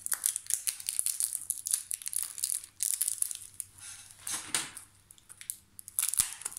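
Plastic packaging crinkling and crackling as it is torn open and handled, in quick irregular bursts, with a short lull about five seconds in before a few more bursts.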